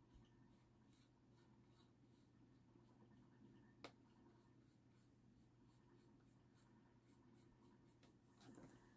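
Very faint, quick scratchy strokes of a fine paintbrush on the edge of a painted box, repeating steadily, with one sharp small click about four seconds in.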